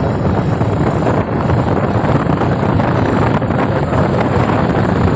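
Steady rush of wind on the microphone of a moving motorcycle, mixed with the bike's engine running at cruising speed.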